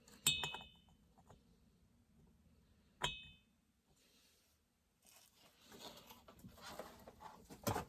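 Two light metallic clinks, each ringing briefly, about three seconds apart, then faint handling and rustling from about five seconds in as small chainsaw engine parts are handled on the bench.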